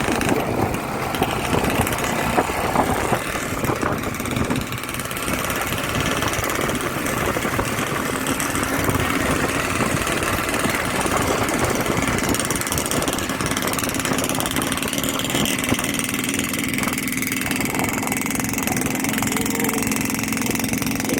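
Motorcycle engine running steadily, with a steady low hum that grows clearer in the last few seconds.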